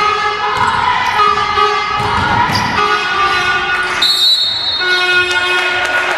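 A basketball dribbled on a wooden gym floor, under steady horn-like tones that start and stop every half second or so.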